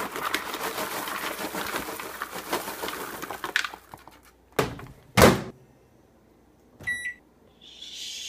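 Popped microwave popcorn poured from its paper bag into a plastic bowl: a rattling, crinkling rustle for about three and a half seconds. Then come two sharp knocks, and a short microwave keypad beep about seven seconds in, with a soft hiss near the end.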